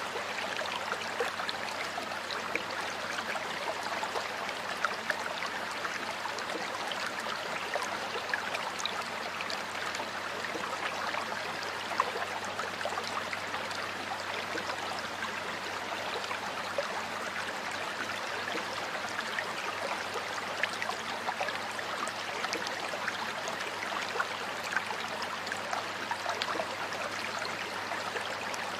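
Water flowing in a stream: a steady rushing with many small, quick splashes scattered through it.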